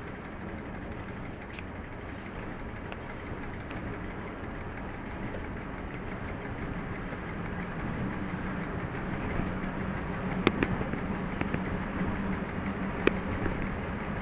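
ČD class 731 diesel locomotive running steadily as a banker pushing at the rear of a heavy freight train of about 1900 tonnes. A low hum grows stronger from about halfway through, and two sharp clicks come near the end.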